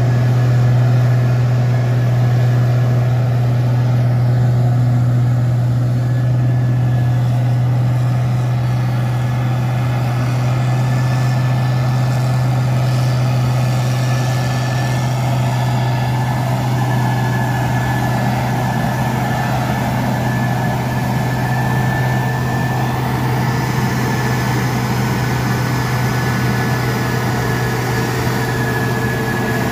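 Case IH 2555 cotton picker's diesel engine running steadily with a deep, even drone, and a thin steady whine above it that grows a little stronger about halfway through.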